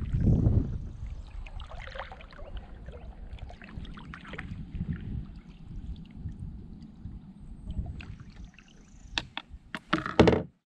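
Water churning and sloshing around a small one-person fishing boat, with a low rumble that is loudest at the start and then settles. Near the end comes a cluster of sharp knocks as a paddle is taken up and bumps against the boat.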